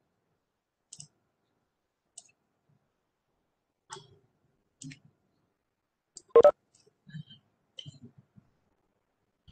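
Scattered small clicks and taps at a computer desk, about ten in all, with one louder knock about six and a half seconds in.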